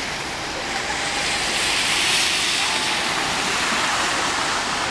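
Floodwater rushing and splashing, a steady noise that swells louder from about a second in and eases again near the end.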